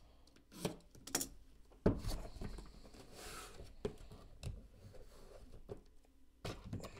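Handling of a cardboard box as its lid is opened and its contents are lifted out of a foam insert: a series of light knocks and clicks, the sharpest about two seconds in, with a brief rustle a little after.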